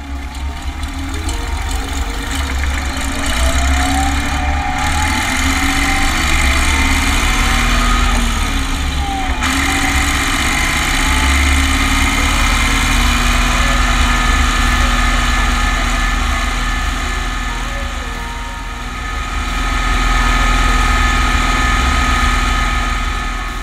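Renault 120.14 tractor's diesel engine running under way, heard close to its upright exhaust stack. Its pitch climbs over the first several seconds, breaks off suddenly about nine seconds in, then holds steady, easing off and picking up again near the end.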